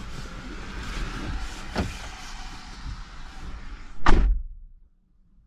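A car door slams shut with one loud thud about four seconds in, after a steady rushing noise and a light click.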